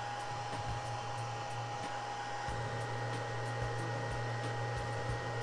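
Fan of a carbon/HEPA air scrubber running steadily, drawing air through its carbon pellet bed and HEPA filter: an even rush of air with a constant high whine and a low hum. A few faint bumps come from the housing being handled.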